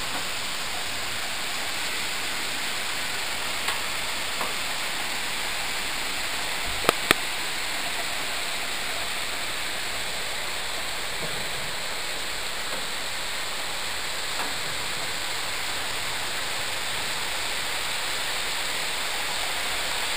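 Heavy rain falling steadily, an even hiss of downpour. A few sharp taps stand out, the loudest two close together about seven seconds in.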